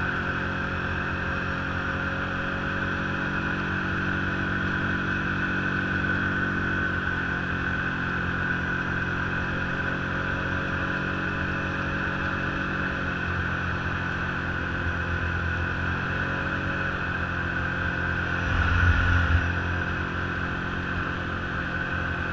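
Engine of a small off-road snow vehicle running steadily at cruising speed along a groomed snow trail, a low rumble under a steady high whine. About 18 seconds in there is a brief louder surge in the low rumble.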